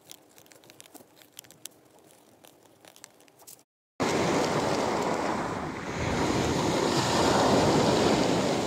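Faint scratching and ticking of a metal dip-pen nib on paper, then, after a brief silence about four seconds in, loud surf: waves breaking and washing over a pebble beach, growing a little louder toward the end.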